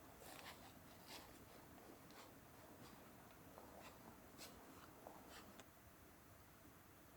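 Faint, scattered scratching and light ticks, like small objects being handled, over a soft hiss; they die away about six seconds in.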